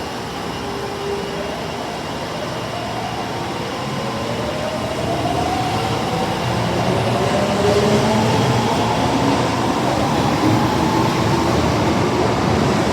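Osaka Metro Tanimachi Line 22-series subway train pulling away, its traction motors whining and rising in pitch as it gathers speed over a steady rumble of wheels, growing gradually louder.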